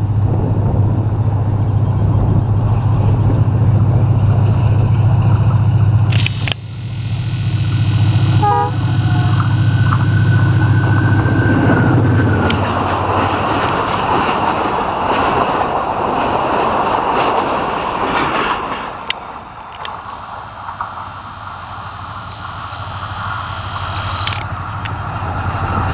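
A ZCU-30 diesel-electric locomotive passing at speed: a loud, deep engine drone for the first twelve seconds or so, with a steady horn-like tone in the latter part of it. Then the coaches rush past with rolling wheel noise, which eases to a quieter rumble with a thin high whine near the end.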